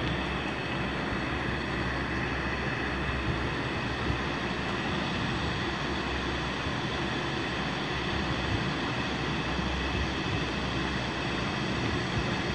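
Steady background hum and rumble with a low mains-type hum underneath, unchanging throughout.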